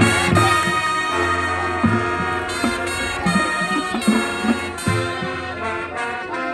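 Marching band playing: held brass chords over repeated bass drum and drum strokes.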